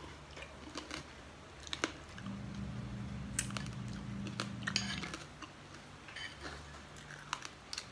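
A person chewing a mouthful of lomi noodles, with light clicks of a metal fork against a glass bowl now and then, over a low steady hum.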